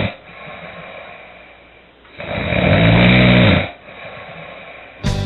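A sleeping person snoring loudly: the end of one snore right at the start, then a second long snore about two seconds in, with quieter breathing between them. Guitar music starts just before the end.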